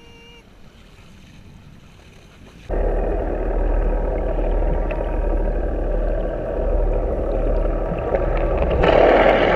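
A camera plunges underwater about two and a half seconds in: quiet above-water air gives way abruptly to muffled underwater noise, a steady low rumble with a faint boat-engine drone, growing louder near the end.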